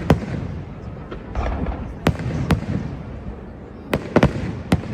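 Fireworks exploding at a display: sharp bangs and cracks, a pair about two seconds in and a quick cluster of three near the end.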